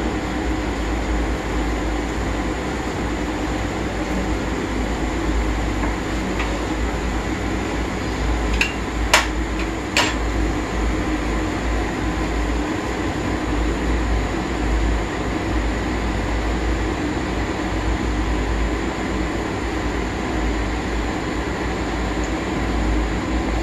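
Cumin seeds sizzling steadily in hot oil in a kadhai, over the steady hum of an induction cooktop's cooling fan. A few sharp clicks come about nine to ten seconds in.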